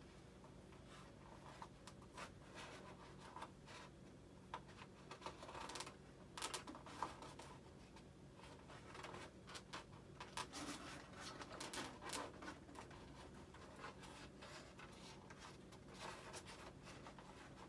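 Faint scratching, rubbing and small clicks of a servo wire and pull tool being worked through the foam airframe of a Freewing F-35 RC jet, coming in irregular clusters.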